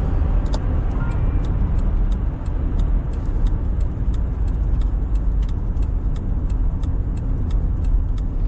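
Car road noise from inside the cabin: a steady low rumble of tyres and engine, with faint regular ticking about three times a second.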